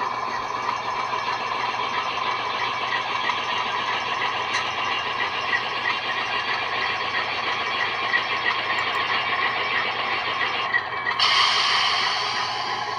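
ALCo 244 diesel prime-mover sound from a QSI Titan-A sound decoder, played through the HO model locomotive's small built-in speakers. It runs steadily, with a light, regular ticking. A burst of hiss comes in about eleven seconds in and fades.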